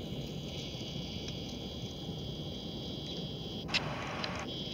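NJ Transit commuter train with a Comet cab car leading, rolling slowly into the station: a low steady rumble with a steady high-pitched squeal, and a single sharp knock near the end.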